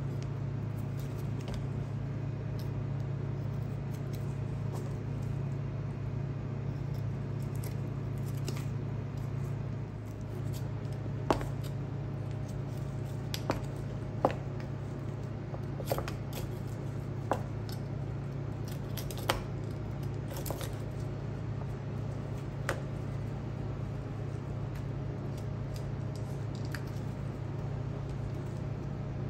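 Knife cutting through a whole Satsuma jidori chicken: soft slicing and pulling of skin and meat, with several sharp taps of the blade on the cutting board in the second half, over a steady low hum.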